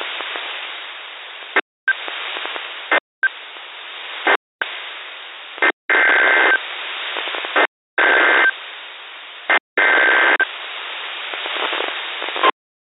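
Weather radio hissing with static on a weak signal, cut by several brief dropouts to silence. About six seconds in, three short bursts of EAS (SAME) data tones sound through the hiss, about two seconds apart.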